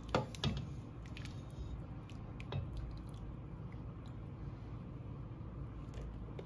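A wooden spoon scooping cooked red beans and broth from a stainless steel pot: a couple of sharp knocks in the first half-second, then soft wet squishing with scattered small clicks.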